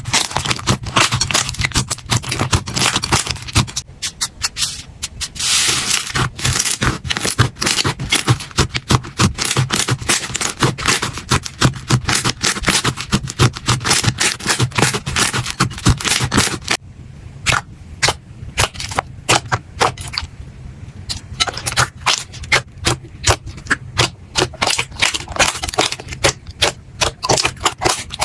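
Slime being squeezed and pressed, making dense crackling, popping clicks. About 17 seconds in it changes to a sparser run of separate sharp clicks.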